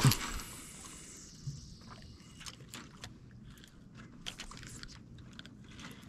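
A fishing rod swished through a cast, then scattered small clicks and ticks from the spinning reel as it is cranked to retrieve the lure.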